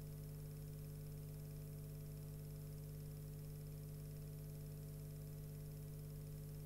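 Steady electrical hum with a low buzz and faint hiss, unchanging throughout; no sound from the fire itself.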